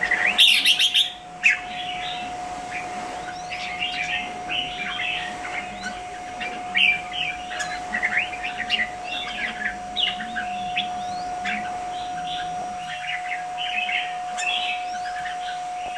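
Caged red-whiskered bulbuls calling in many short, quick chirps and chattering notes. There is a brief loud rustling burst about half a second in, and a steady faint hum underneath.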